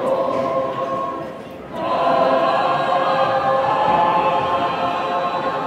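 Mixed choir singing unaccompanied, holding sustained chords; the voices break off briefly about a second and a half in, then come back in together on a new held chord.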